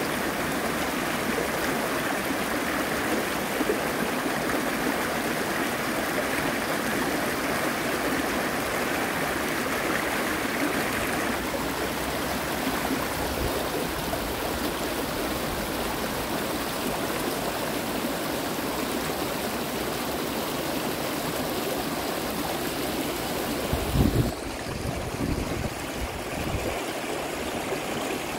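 Creek water rushing over rocks in shallow rapids: a steady rush that grows a little duller about halfway through. A brief low thump a few seconds before the end.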